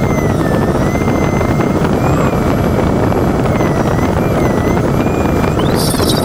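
Steady loud rush of airflow inside an LS4B glider's cockpit in flight, with the audio variometer's continuous high tone wavering slowly up and down in pitch as the glider's climb or sink changes. A short burst of hiss comes near the end.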